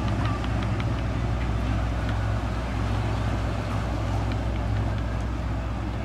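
Motorboat engines running steadily with a low hum as a boat passes through the inlet.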